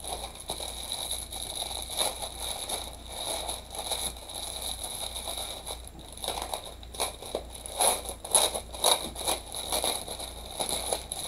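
A plastic bag of diamond-painting drills being handled and unwrapped, giving irregular crinkling and crackling that gets busier and louder in the second half.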